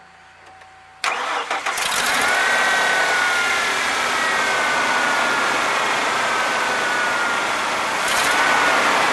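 1996 Ford F-150 pickup engine cranking about a second in, catching, and settling into a steady idle with a high whine that drifts slowly down in pitch. It runs evenly, with no misfire, now that a plugged fuel injector has been replaced.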